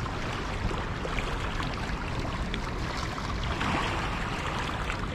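Shallow river water lapping and washing over shoreline rocks as a steady splashing rush. A small wave breaks over the stones a little louder about three and a half seconds in.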